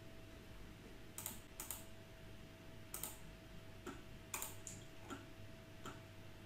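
Faint, irregular clicks of a computer keyboard and mouse, about a dozen taps spread out, over a faint steady hum.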